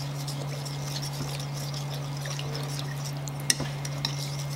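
Metal spoon stirring a lime juice, fish sauce and palm sugar dressing in a glass bowl, with faint scraping and clinking against the glass as the palm sugar is dissolved. A sharper clink comes about three and a half seconds in, over a steady low hum.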